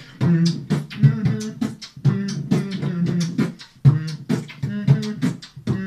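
Beatboxing into a handheld microphone: a quick rhythm of sharp percussive clicks and snare-like hits woven with short hummed pitched notes.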